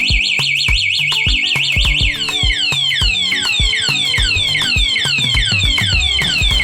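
MAS anti-theft alarm siren on a Honda Wave 110i motorcycle, set off by the remote's lock button: a fast high warble for about two seconds, then a falling whoop repeating about four times a second. This is the alarm's anti-theft mode, which then cuts the engine.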